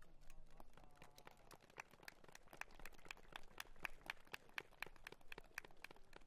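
Faint, scattered hand-clapping from a few spectators: sharp claps at an uneven pace of several a second, with a faint voice about a second in.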